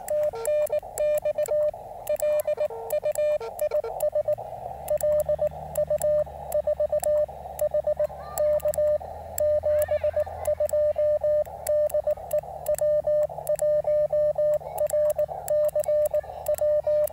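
Morse code sent from a QRP CW radio: its sidetone, a steady mid-pitched beep, is keyed on and off in dits and dahs, with the click of the hand-held paddle key on each element, over band-noise hiss from the receiver. In the first few seconds a fainter, lower-pitched Morse tone is keyed as well.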